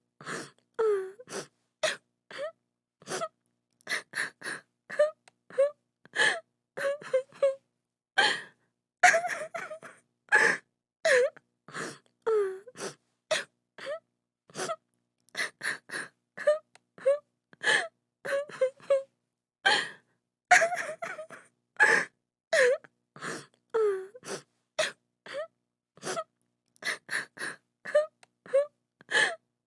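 A woman crying hard: short gasping sobs a few times a second, broken by short falling wails.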